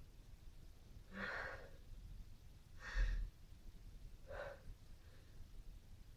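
A person's breathy sighs or huffs, three of them about a second and a half apart; the middle one, about three seconds in, is the sharpest and loudest.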